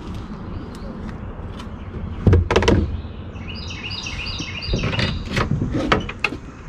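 Heavy knocks and thumps on a boat, a cluster about two seconds in and a string of lighter knocks and clicks later on, with a bird giving a fast run of repeated high chirps in the middle.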